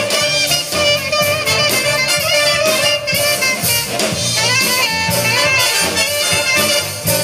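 Youth jazz orchestra playing a big-band jazz number, with saxophones and brass playing together over a steady bass line.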